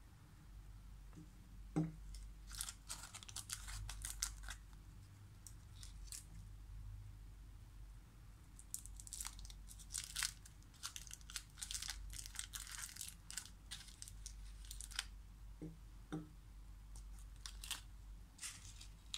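Thin foil candy wrappers crinkling as they are peeled off small chocolates, in several stretches of rustling. A few soft knocks come as the chocolates are set down on a ceramic plate.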